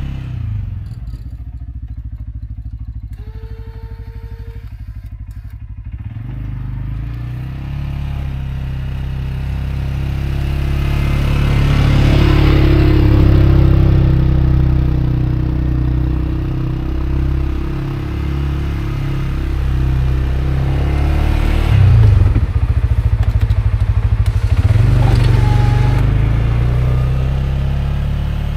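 CFMoto CForce 520L ATV's single-cylinder engine running under changing throttle while snow plowing. It runs lighter for the first few seconds, then pulls harder and louder through the middle, with clatter and a sharp knock about three quarters of the way through.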